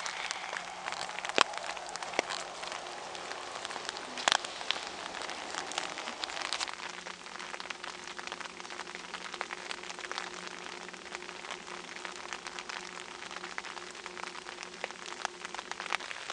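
Thin, steady rain falling: a dense patter of small drops, with a few louder taps about a second in and again about four seconds in.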